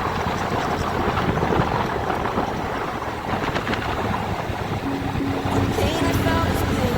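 Riding a motorbike: wind rushing over the microphone, with engine and road noise underneath. Faint tones come in near the end.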